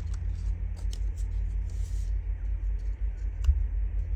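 Steady low hum with faint light taps and rustles of paper pieces being handled on a craft table. One sharper tap comes about three and a half seconds in.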